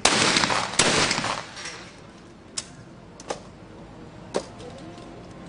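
Two shotgun shots about 0.8 s apart, a skeet double, each echoing away over a second or so, then a few faint sharp clicks.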